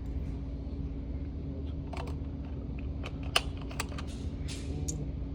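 Scattered sharp clicks and clacks, typical of a rifle and its gear being handled at a shooting bench, with one louder clack about three and a half seconds in, over a steady low hum.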